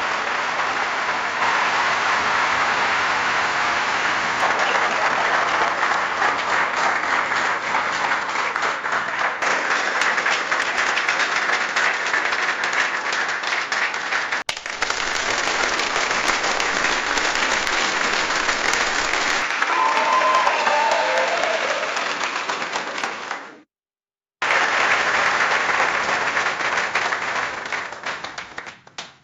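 Crowd applause from several recordings joined one after another: dense, steady clapping, a brief break about halfway, a short silent gap near the end, then more clapping that fades out. A short pitched call rises over the clapping about two-thirds through.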